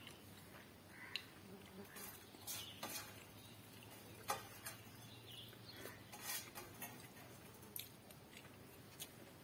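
Fingers mixing rice and curry on a steel plate, with faint scattered wet clicks and scrapes, and mouthfuls being eaten by hand.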